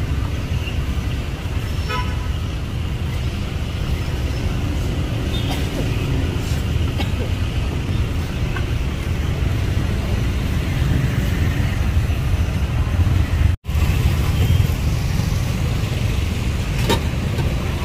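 Steady street traffic rumble from passing motorbikes and cars, with a short horn toot about two seconds in. A few light clicks sit over it, and the sound drops out for an instant about two-thirds of the way through.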